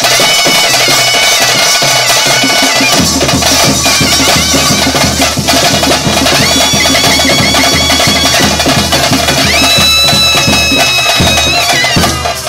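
Traditional Bhuta Kola ritual music played live: a reed pipe sounds long held notes over fast, dense drumming. A low drone joins about three seconds in.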